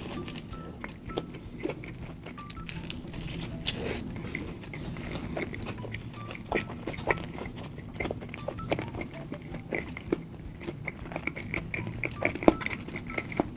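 Close-miked eating: a person chewing and biting McDonald's fast food, with many short wet mouth clicks and a little crunch scattered irregularly.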